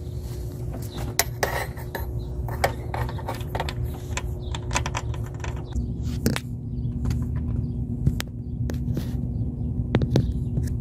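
Scattered sharp metallic clinks and taps of a hand tool and metal parts while a new timing-chain tensioner is fitted into the engine block of a Ford 4.0L engine, over a steady low hum.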